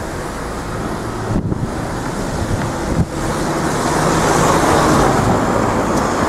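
Cars and a van driving off over the level crossing, their tyres and engines growing louder from about three seconds in. Wind rumbles on the microphone throughout.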